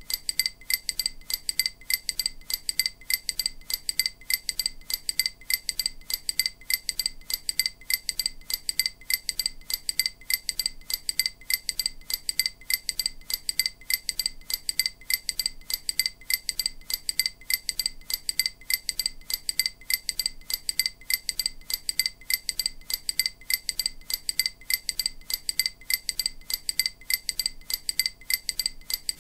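EMDR bilateral-stimulation audio: a short, bright, bell-like click repeating at a fast, perfectly even pace, several times a second. These pulses are meant to alternate between the left and right ears to stimulate both halves of the brain in turn.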